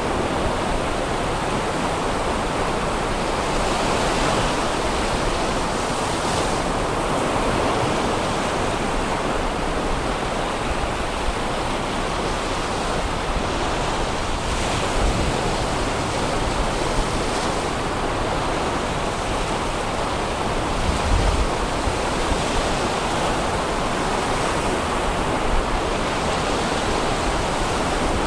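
Sea surf breaking and washing up a sandy beach, a steady rushing noise. A few brief low rumbles of wind buffet the microphone, the strongest about 21 seconds in.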